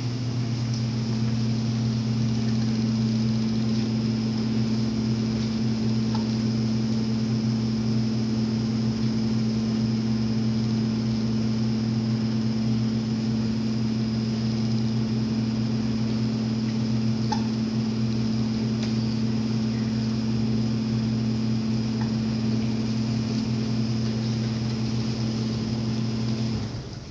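A steady machine hum, low with a faint high whine above it, that cuts off suddenly near the end.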